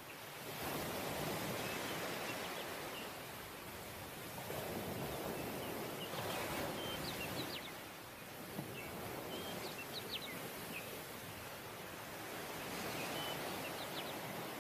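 Sea surf breaking and washing up a sandy beach, swelling and easing about every four seconds. Faint short high chirps come now and then.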